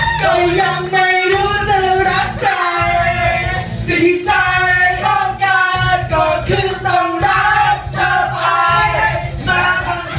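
Karaoke singing into microphones, amplified over a backing track with a steady low beat.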